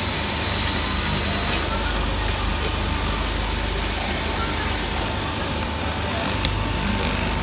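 Eastman cloth drill machine's electric motor running steadily, a high whine over a low hum, with a few light clicks.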